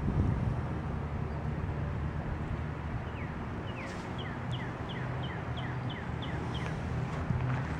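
A bird calling a quick run of about ten short chirps, each falling in pitch, about three a second, starting a few seconds in. A steady low rumble lies underneath.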